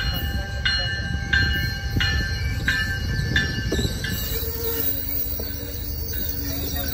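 MBTA commuter train running past close by as it comes into the station, with a steady low rumble of wheels on rail. Its bell rings about every two-thirds of a second and stops about four seconds in. A low squeal from the wheels follows in the second half.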